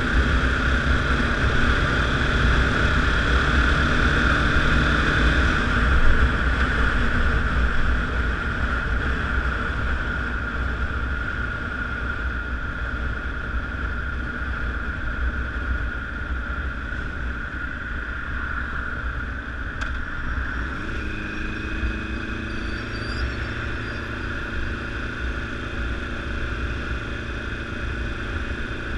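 Honda CBR1000RR sportbike's inline-four engine running on the move. It is loudest for the first few seconds, eases off over the next several, and rises in pitch again about two-thirds of the way through.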